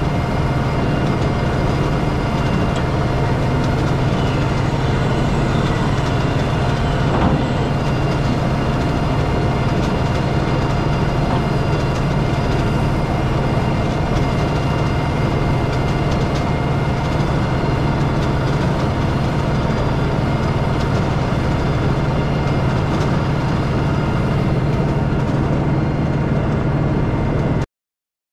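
Steyr 9094 tractor's diesel engine running steadily while working a Trioliet feed mixer wagon. The sound cuts off abruptly near the end.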